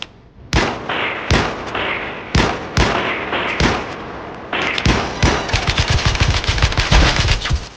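Gunfire sound effects: about five single shots over the first four seconds, each with a long rolling echo, then about three seconds of rapid automatic fire that cuts off near the end.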